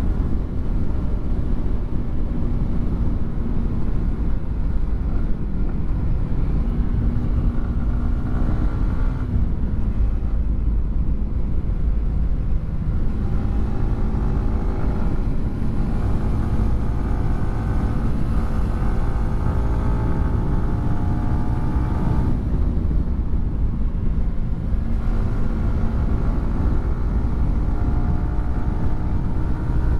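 Yamaha R15 M's 155 cc single-cylinder engine breathing through a WRX GP3 aftermarket exhaust while riding. It holds steady cruising revs, and its pitch shifts a few times as it changes speed. A strong low rumble runs underneath.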